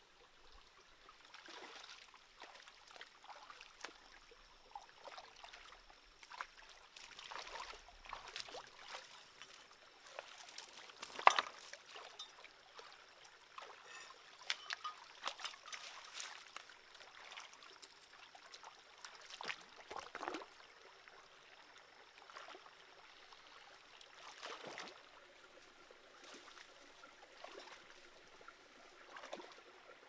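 Shallow rocky stream trickling, with irregular splashes and knocks as a person wades and works in the water; the sharpest and loudest comes about eleven seconds in.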